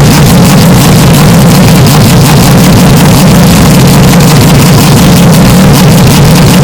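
Porsche 911 RSR race-car engine held at steady revs, heavily bass-boosted and clipped into a constant distorted drone, with no rise or fall in pitch.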